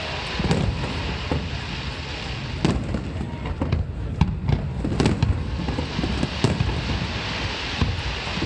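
Aerial fireworks bursting in quick succession: a continuous rumble of booms, with several sharp, loud bangs standing out (about 2.5, 5 and 6.5 seconds in).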